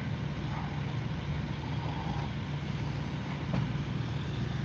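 Fire engine running steadily, its pump supplying the hose lines at a working fire: a low, even drone. There is a faint knock about three and a half seconds in.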